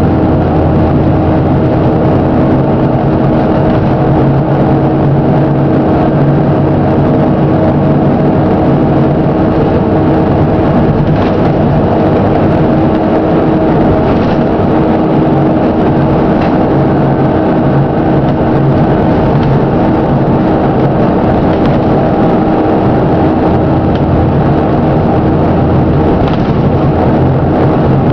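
The diesel engine of a Plaxton President double-decker bus running steadily, a bad engine knock being the fault it is recorded for.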